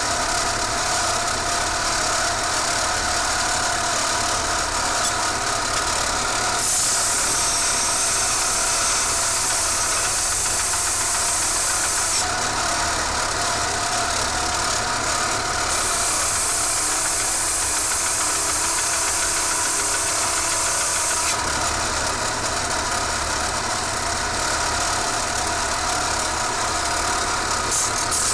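Electric belt sander running steadily while a steel clipper blade is ground on its abrasive belt. The grinding hiss turns brighter for several seconds about a quarter of the way in, and again over the last quarter.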